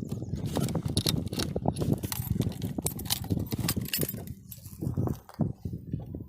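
Rapid, irregular clattering and jingling, with many quick clicks and knocks that thin out near the end.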